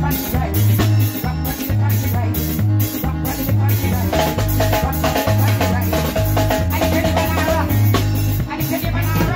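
Live band playing upbeat dance music: a drum kit and deep bass keep a steady, even beat, and a higher melody line comes in about four seconds in.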